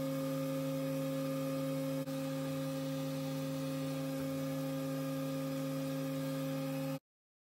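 Background music: a steady held chord that cuts off abruptly about seven seconds in.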